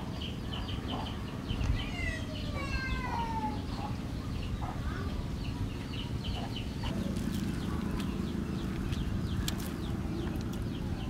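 Birds chirping rapidly and repeatedly throughout, with a falling bird call about two seconds in, over a low steady hum.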